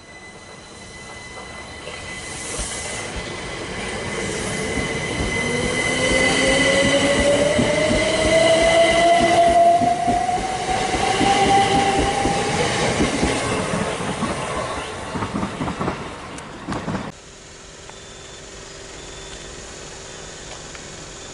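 Southern Class 377 Electrostar electric multiple unit passing along the platform, its traction motors whining with a rising pitch as its wheels clatter over the rail joints. The sound builds to its loudest in the middle, then cuts off suddenly near the end to a quieter, distant rail hum.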